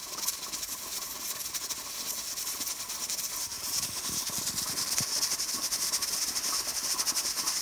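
Pressure cooker regulator weight, stacked rings set for 15 psi, jiggling on the vent pipe as steam hisses out from under it, with a fine rapid rattle; the pressure has just reached the weight's setting. The hiss grows louder about halfway through.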